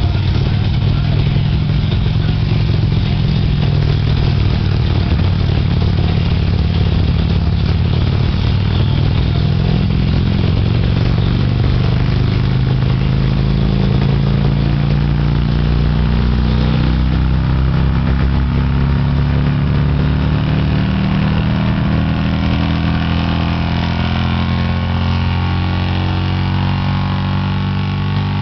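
Touring motorcycle engine running hard on a chassis dynamometer, a loud steady drone; over the second half its pitch slowly falls as the engine and rollers wind down.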